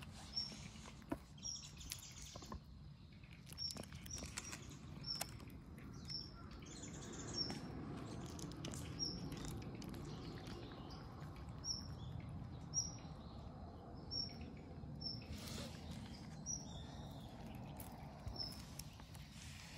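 Cats eating from a bowl, with soft clicks of chewing and of the bowl. A bird repeats a short, high chirp roughly once a second.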